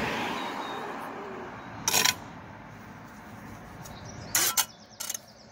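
Steel brick trowel scraping and knocking on fresh sand-and-cement mortar on top of a brick pillar: three short, sharp scrapes, one about two seconds in and two near the end. Passing road traffic fades away at the start.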